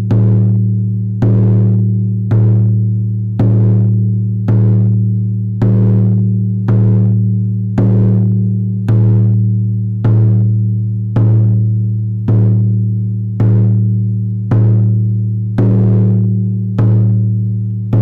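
A deep, ringing drum struck in a slow, even beat, a little under one stroke a second, each stroke's low tone fading away before the next.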